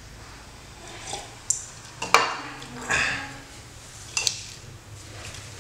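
Cups, a small bowl and a saucer clinking and knocking as they are handled and set down on a glass tabletop: several short, sharp clinks spread out, the loudest a little after two seconds in.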